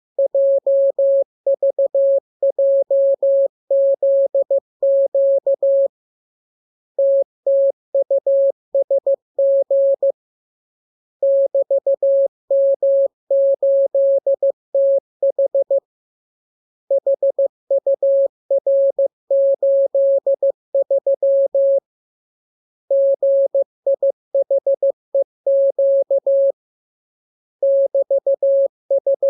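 Morse code (CW) training transmission: a single steady tone keyed on and off in dots and dashes at an even pace, sent in groups of characters with pauses of about a second between groups.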